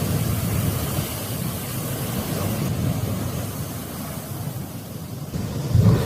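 Steady rushing noise of floodwater with wind buffeting the microphone, a low rumble underneath and a louder swell near the end.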